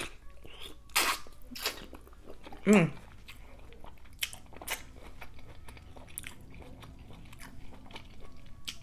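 Close-miked eating of a seafood boil: wet chewing and lip-smacking, with a few sharp smacks and a brief hum of voice about three seconds in.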